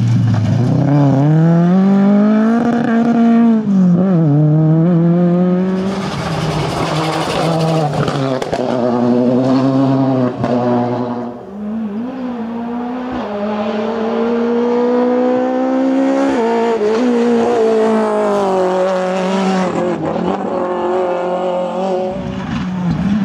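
Rally car engines revving hard at full throttle through gear changes as they pass at speed, the pitch climbing and dropping with each shift. First a Ford Escort Mk2, then, after a brief lull about halfway through, another car's engine climbing through the gears as it comes by.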